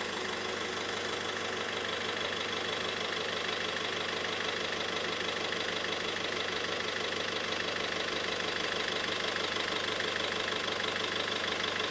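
Peugeot 207 1.6 HDi four-cylinder diesel engine idling steadily.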